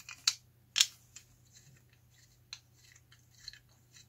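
Clicks and light knocks from handling the die-cast metal housing of an outdoor cable-TV tap, a few scattered ones with the loudest about a second in.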